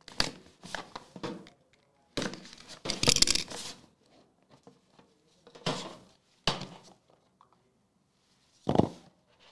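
Hands handling a metal trading-card tin and the cardboard box of cards inside it: a few separate scrapes and knocks. The longest and loudest comes about three seconds in, with a dull knock near the end.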